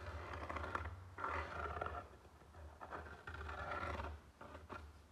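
Pen scratching along a pine board while the outline of a knife tang is traced, in several strokes of about a second with short pauses, with rubbing and shifting of the gloved hand and blade on the wood.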